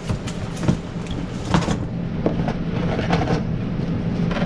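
Blister-packed engine parts and boxes being shuffled around in a cardboard box: irregular clicks, taps and rustles of plastic and cardboard, over a steady low hum.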